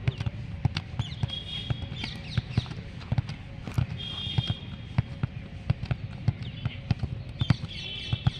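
Irregular sharp knocks and thumps, several a second, over a low steady rumble, with three short high-pitched calls.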